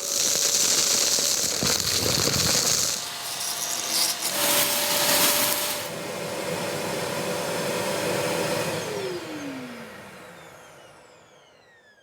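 Kärcher wet-and-dry vacuum cleaner running at full suction with a steady whine and rushing air, then switched off: the motor winds down with a falling whine and fades out over the last few seconds.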